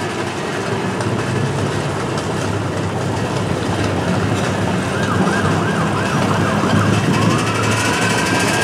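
Fire apparatus siren: a fast warbling yelp about five seconds in, then a wail that rises about seven seconds in and holds high near the end, over the steady low running of vehicle engines.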